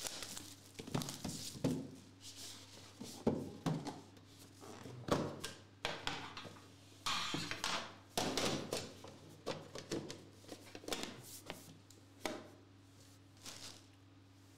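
Plastic shrink wrap crinkling as it is peeled off a 2021 Immaculate Football card box, then the cardboard box being opened and handled, with irregular scrapes and knocks on the desk mat.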